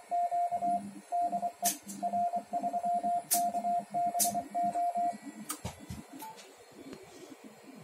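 Morse code (CW) sidetone from a Yaesu ham transceiver: a steady mid-pitched tone keyed in dots and dashes while the linear amplifier transmits. A lower buzz follows the keying, and a few sharp clicks are heard. The keying stops about five seconds in.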